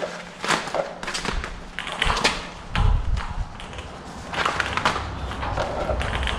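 Irregular scraping and rubbing as the new rubber bottom seal of a garage door is worked along its bottom bracket, with a few light knocks. A low rumble runs underneath from about three seconds in.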